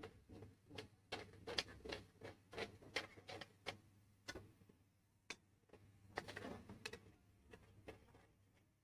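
Faint stirring of a curry masala just thinned with water in a pan: repeated light clicks and scrapes of the utensil against the pan, about two a second, thinning out near the end.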